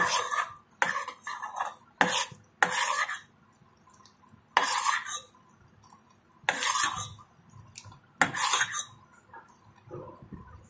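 Metal spoon scraping and clinking around a stainless-steel pot while stirring bubbling jaggery syrup as it cooks down toward a sticky, thread-forming consistency. About seven separate strokes come a second or two apart, growing fainter near the end.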